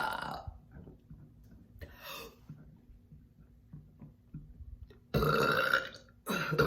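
Loud, drawn-out burps brought up by chugging carbonated cinnamon Coca-Cola: one tailing off at the start, a long one about five seconds in, and another starting just before the end.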